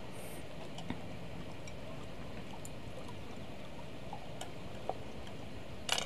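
Faint steady background hiss with a few soft clicks, one about a second in and one near the end.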